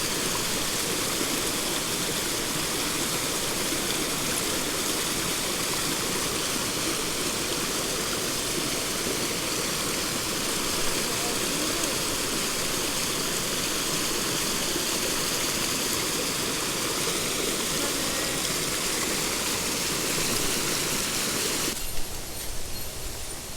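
Mountain stream running, a steady rush of water noise. The rush drops away sharply near the end.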